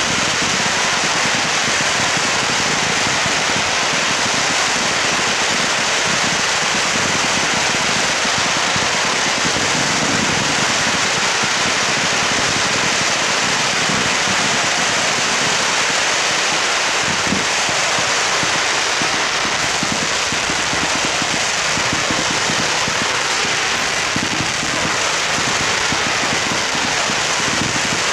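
Star mine fireworks barrage: a dense, unbroken crackling at a steady loudness, like heavy rain, with no single bang standing out.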